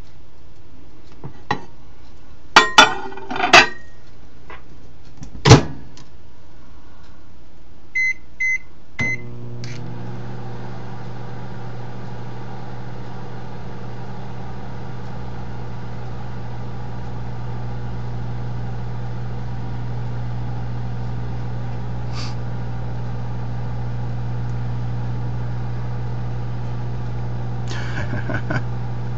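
Microwave oven being loaded and started: a few clacks and one sharp knock, three short keypad beeps about eight seconds in, then the oven runs with a steady low hum. Faint clicks come near the end.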